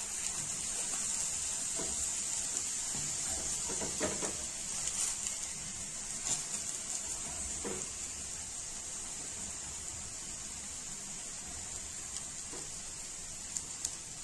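Ghee sizzling steadily under a methi paratha cooking on a hot iron tawa, with a few light taps and scrapes of a steel spoon spreading the ghee.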